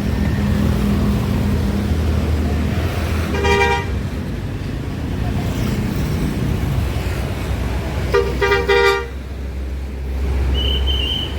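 Tour bus's multi-tone telolet horn sounding twice, a short blast about three and a half seconds in and a longer, broken one around eight seconds in, over the steady rumble of passing traffic and bus engines.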